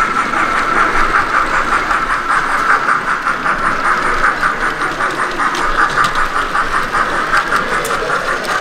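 Model train running on an exhibition layout: a steady whine that pulses evenly several times a second, over a low background hum.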